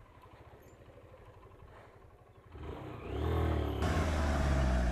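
Faint low rumble, then about two and a half seconds in a Mahindra Scorpio SUV's engine comes in loud, labouring under load as the vehicle climbs a steep dirt slope. Its pitch dips and then holds steady, and a rushing hiss joins it about a second later.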